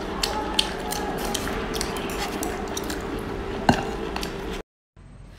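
Close-miked eating sounds of raw geoduck: many small wet mouth clicks and smacks over a steady low hum, with one sharper knock a little before four seconds, likely the shell against the glass bowl. The sound cuts off suddenly shortly before the end.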